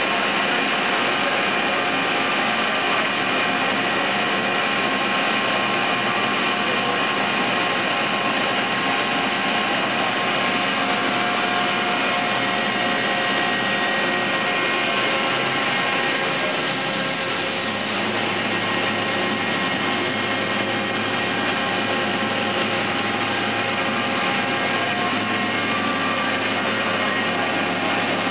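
168-inch Niles vertical boring mill running with its table turning: a steady mechanical whir with several steady tones from the drive. About two-thirds of the way through it dips slightly and a low hum comes up.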